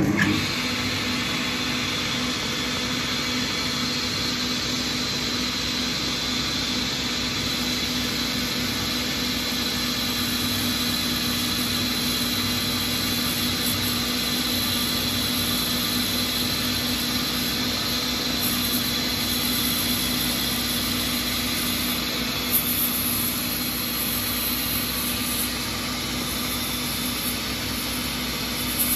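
Boxford BUD metal lathe switched on and running steadily, with a steady hum and a high whine, while a parting tool cuts into the spinning brass stock to part off the lid.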